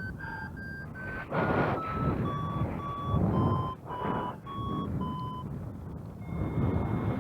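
Flight variometer beeping in a run of short tones, about two to three a second, the sign of the glider climbing in lift. The pitch steps down over the first few seconds as the climb weakens, then gives way to a steadier, higher tone near the end. Gusts of wind rush on the microphone beneath the beeps.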